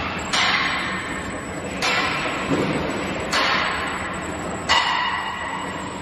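Thin-blade slitter scorer's blade and scoring-wheel holders moving into new positions during an automatic order change: four sudden mechanical sounds, one about every one and a half seconds, each dying away over about a second, over the machine's steady running.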